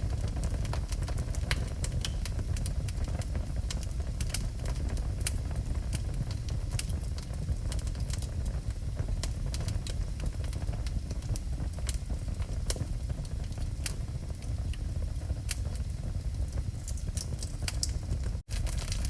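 Wood fire burning in a fireplace: a steady low rumble of the flames with irregular sharp crackles and pops from the burning logs. The sound cuts out for an instant near the end.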